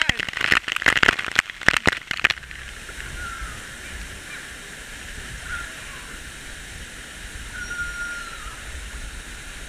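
A burst of close, sharp crackling for about two seconds, which stops abruptly. After it comes a steady rush of flowing river water, with a few short, faint high tones.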